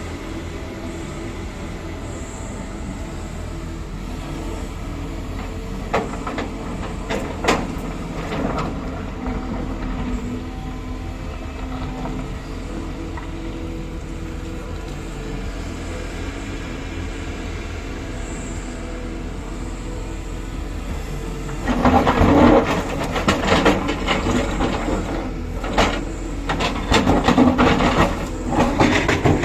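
Excavator's diesel engine running steadily, with a few metal clanks; about three-quarters of the way through, a louder stretch of repeated clanking and scraping begins.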